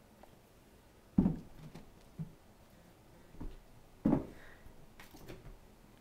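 A kitten jumping and pouncing on carpet: a few short thumps, the two loudest about a second in and about four seconds in, with lighter ones between.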